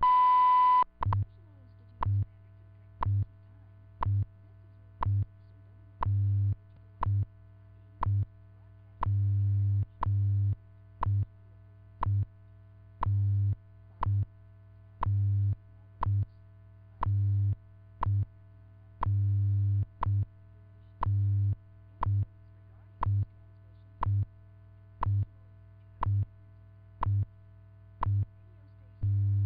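WWV time signal: a 1000 Hz minute tone lasting just under a second marks the start of the minute, followed by a short tick every second. Under the ticks, the station's low 100 Hz time-code tone pulses on and off in short and long blocks, with a faint steady hum between.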